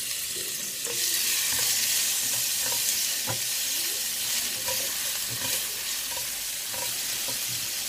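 Blended paste sizzling in hot oil in a non-stick frying pan as it is sauteed, with a silicone spatula stirring it and now and then tapping and scraping the pan.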